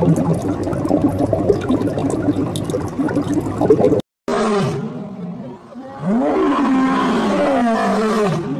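Bubbling, gurgling water for about four seconds. Then, after a brief cut, a lion roaring: several long calls that rise and fall in pitch.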